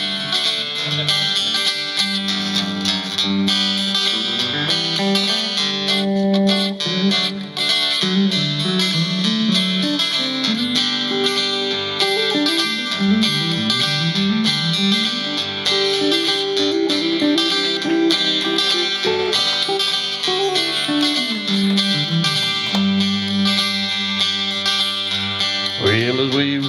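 Instrumental break of a country song on two acoustic guitars and an electric guitar: a picked lead melody moving over steady rhythm chords.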